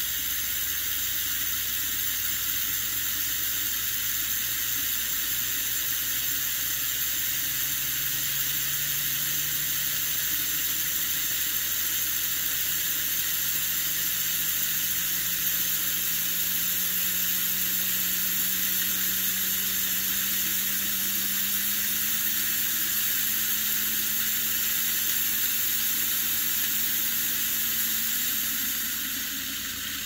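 Kamenstein World of Motion rocket teapot at the boil: steam hissing steadily from the stainless kettle as it drives the rocket spinning on the lid. A low hum rises slowly in pitch through the middle and drops away near the end.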